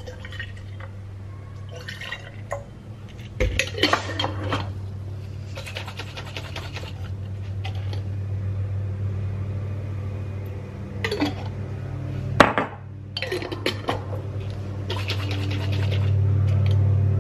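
Half-and-half poured into a glass Alfredo sauce jar, then the jar shaken and handled, giving sloshing and glassy clinks in several short clusters. A steady low hum runs underneath and grows louder near the end.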